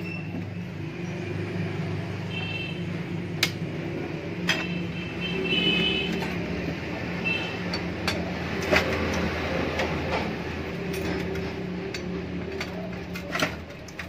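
A handful of sharp metal clicks and knocks as the motor and pump assembly of an opened hermetic refrigerator compressor is handled and worked with a rod, over a steady low hum.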